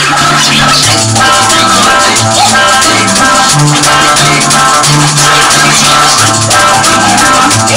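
Ragga-jungle reggae music played loud, with a bass line stepping between low notes and busy, rattling high percussion, as a drum kit plays along to the track.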